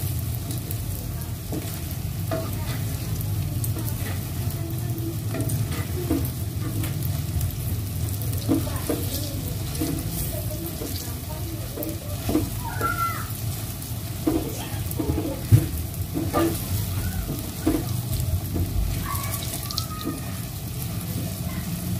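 Balls of wheat-flour and sago dough frying in hot oil in a wok: a steady sizzle, with a metal spatula scraping and clicking against the pan as they are stirred, one sharper knock about two thirds of the way through.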